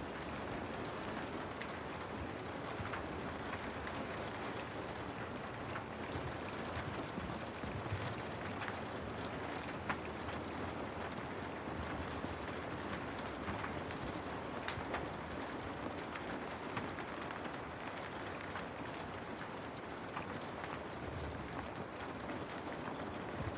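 Steady rain falling, an even hiss with scattered individual drops ticking against a window.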